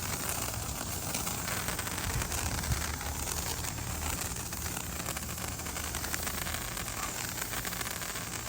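A burning ground firework hissing and crackling steadily, with wind rumbling on the microphone.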